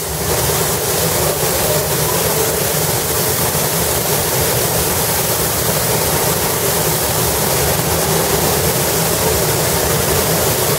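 Paint spray gun on a painting robot's arm spraying, a loud steady hiss, over a low steady rumble.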